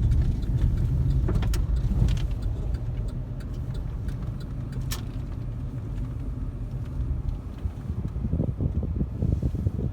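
Car on the move: a steady low rumble of engine and road noise, with a few sharp clicks. Near the end, uneven low gusts of wind buffet the microphone.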